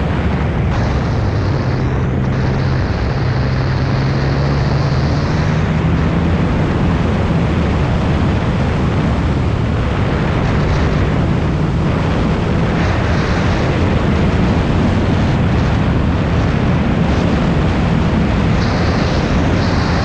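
2014 Yamaha FZ-09's three-cylinder engine running under way, its note stepping up a little in the first few seconds, under heavy wind rush over the helmet-camera microphone.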